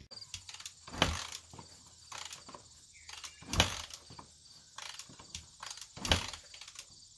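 Three kicks on the kickstarter of a Yamaha XT350's single-cylinder four-stroke engine, about two and a half seconds apart, each a short burst as the engine turns over without catching. The owner suspects a faulty decompression lever.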